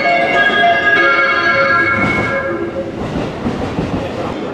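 JR West train's music horn playing its short electronic melody, a few steady notes that end about two-thirds of the way in. The train then runs past close by.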